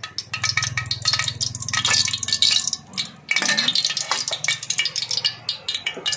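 Metal spatula scraping and clinking against a metal wok as it spreads hot oil, a run of quick scrapes and taps, loudest about two seconds in.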